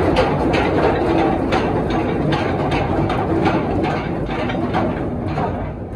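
Cargo ship's anchor chain running out over the windlass gypsy as the anchor is let go: a continuous heavy rumble with rapid metallic clanks of the chain links, easing off near the end.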